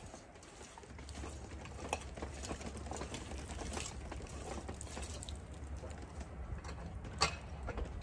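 Hand-turned auger post hole digger boring into soil: faint irregular scraping and crunching of the blade in the dirt. There are a couple of sharper knocks, the loudest about seven seconds in.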